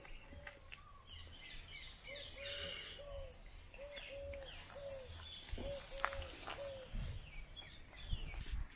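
Birdsong: one bird repeats short, low hooting notes, mostly in groups of three, while smaller birds chirp higher around it. A low rumble comes in near the end.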